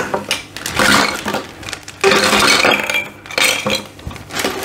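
Hard plastic hose fittings and clear rigid aquarium filter pipes clinking and knocking together while a plastic bag crinkles, in several bursts as the parts are handled and packed into the bag.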